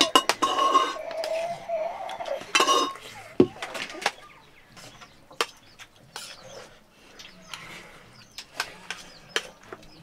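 Cutlery and dishes clinking and tapping in scattered short knocks during a meal, louder in the first few seconds.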